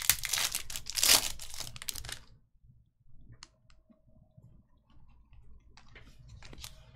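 Hockey card pack's wrapper being torn open and crinkled by hand for about two seconds, with the loudest rip about a second in. Then only a few faint clicks as the cards are handled.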